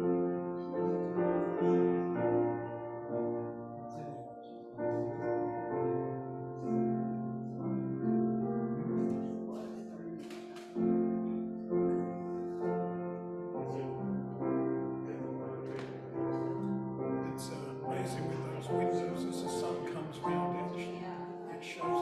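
Slow, gentle piano music: chords struck every second or two, each fading before the next.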